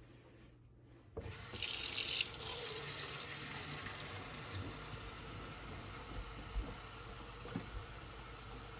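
Kitchen tap turned on about a second in, running water into a plastic bottle. It starts with a loud, hissing rush for about a second, then settles into a steady stream.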